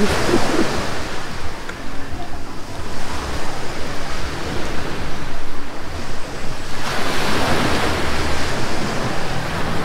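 Surf washing onto a beach, with wind rumbling on the microphone; the rush grows louder about seven seconds in.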